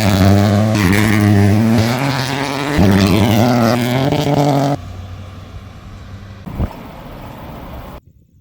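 Peugeot 208 Rally4's turbocharged three-cylinder engine running hard, its pitch dipping and climbing again as it shifts gears. About five seconds in it drops suddenly to a much quieter engine sound, with one short rising rev near the end.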